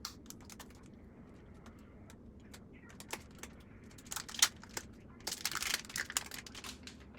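Fingernails clicking and picking at a plastic package of under-eye pads, with crinkling as the packaging is worked open; scattered clicks at first, then denser crinkly bursts in the second half.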